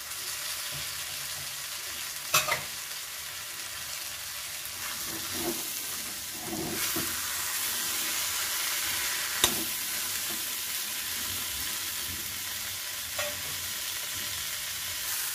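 Boiled chickpeas frying in onion-tomato masala in a metal kadai, a steady sizzle while a steel ladle stirs them, with a few sharp clinks of the ladle against the pan, the sharpest about nine seconds in.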